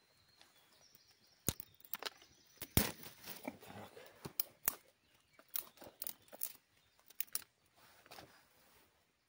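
Dry twigs and branches snapping and rustling as they are broken and handled for a campfire: a run of irregular sharp cracks with rustling between them.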